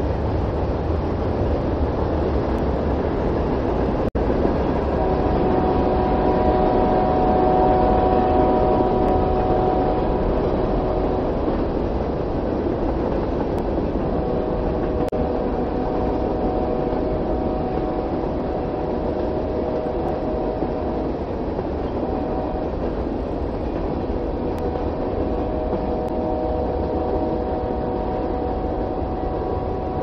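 A train running on the rails with a steady low rumble, its locomotive air horn sounding several tones at once in four blasts: long, long, short, long, the standard signal for a grade crossing.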